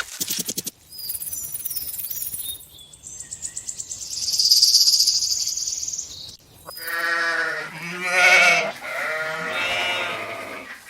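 A high hissing noise for several seconds, loudest around four seconds in, then from about seven seconds in a goat or sheep-like farm animal bleats about three times in drawn-out, wavering calls.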